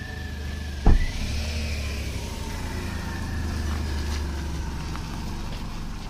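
A car door shuts with a single loud thump about a second in, followed by the low, steady rumble of a car engine running.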